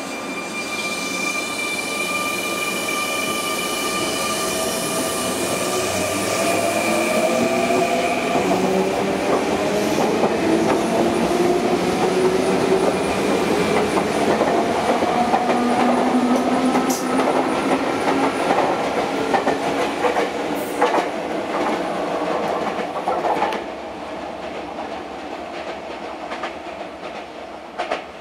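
Sotetsu 9000 series electric train pulling away from a station: steady high tones at first, then the traction motors' whine climbing in pitch as the train accelerates, with wheels clattering over rail joints. About 23 seconds in the sound drops as the train clears.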